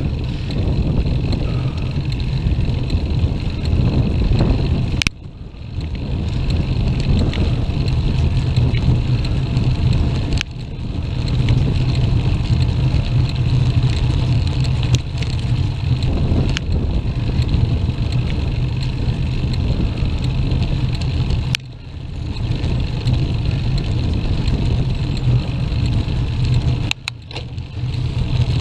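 Wind buffeting the microphone of a bike-mounted action camera while riding: a steady low rumble that dips suddenly for a moment four times.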